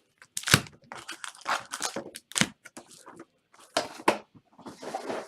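Packaging on a box of 2017 Panini Elite Draft Picks football trading cards being torn open by hand: a run of sharp rips and crinkles with short pauses between them.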